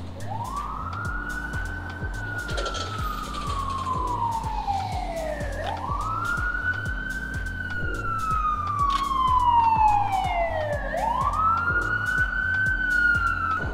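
Emergency vehicle siren wailing on a city street: three slow wail cycles, each rising quickly and then falling slowly over about five seconds. Background music with a bass line runs underneath.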